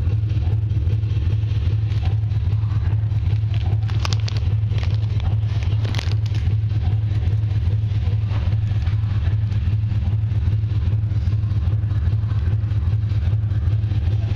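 A steady low rumble with a few brief rustles or clicks about four and six seconds in.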